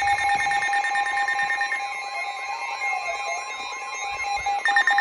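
Emergency Alert System attention signal: a loud, steady electronic alert tone with a rapid chattering pulse over it. It signals an incoming severe thunderstorm warning.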